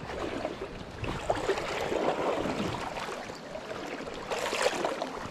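Flowing stream water with irregular sloshing and splashing close by.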